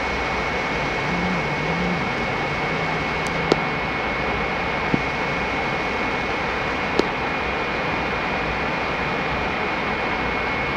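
Steady rush of airflow and jet engine noise inside a Boeing 767 cockpit in flight on approach, with a constant thin high whine and a few sharp clicks.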